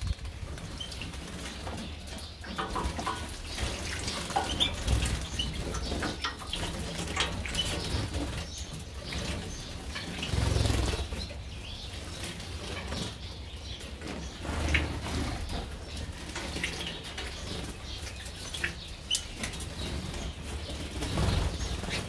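Canaries and European goldfinches bathing in a shallow water tray: wings flapping and fluttering in irregular bursts, with scattered short chirps.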